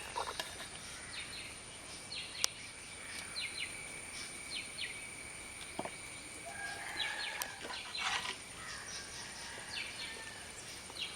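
Outdoor rural ambience: birds chirping in short, repeated calls over a steady high-pitched hiss, with a couple of sharp clicks.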